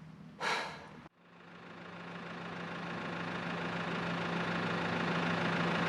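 A brief rustling noise about half a second in, then a sudden break. The New Holland Workmaster 105 tractor's diesel engine then idles steadily with a low, even hum, growing gradually louder.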